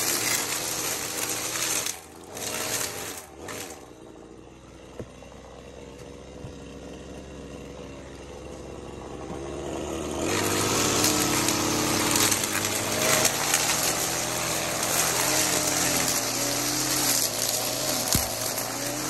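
String trimmer cutting through overgrown groundcover and grit along a path's timber edging. Loud cutting at first, a few short bursts until about three and a half seconds in, then quieter running that slowly builds, and steady full cutting again from about ten seconds in.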